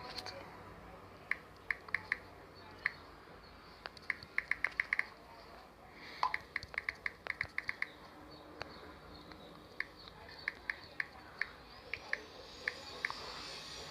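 Phone keyboard clicking as a message is typed: short, high ticks in quick runs of several taps, with pauses between the runs.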